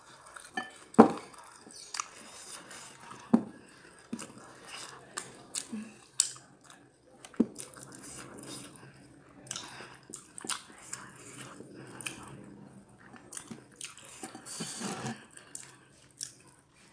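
A person chewing and lip-smacking, close to the microphone, while eating jengkol balado with rice and crispy fried tempeh by hand. Sharp clicks and crunches come at irregular moments, with softer wet chewing between them.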